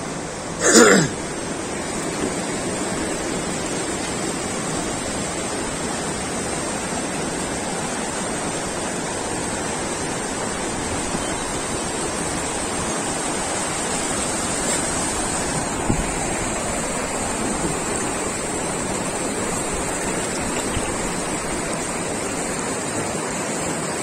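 Shallow mountain stream rushing steadily over stones. A short, loud burst of sound about a second in.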